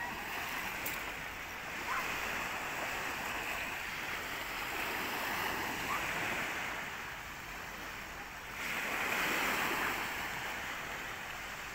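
Small waves breaking and washing up a beach: a steady hiss that swells and ebbs, loudest about three-quarters of the way through.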